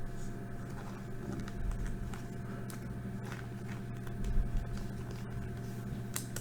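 Steady electrical hum with a few faint clicks and rustles from trading cards being handled.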